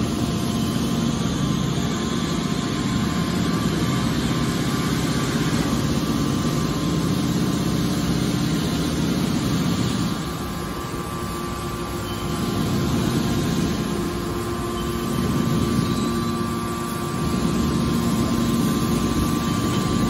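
Hydraulic scrap metal baler's power unit running steadily, a machine hum with a steady tone through it, while its rams open the chamber door and push out a compressed bale. The sound drops a little about halfway through and rises again, as the load on the pump changes.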